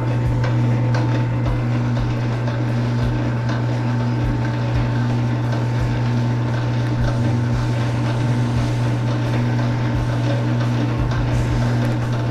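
Motorized wire-stripping machine running steadily with a strong low hum while a length of insulated copper or aluminum wire is fed through its cutting blade to slit the insulation.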